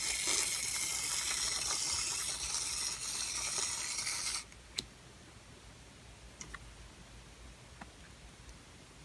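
Shaving foam spraying from an aerosol can: a loud, steady hiss for about four and a half seconds that cuts off suddenly, followed by a few faint clicks.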